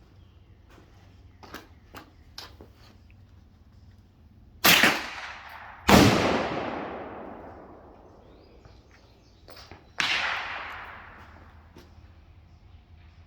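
Three shots from a suppressed .22 LR rifle, about 4.5, 6 and 10 seconds in, each followed by a long fading echo. A few faint clicks come before the first shot.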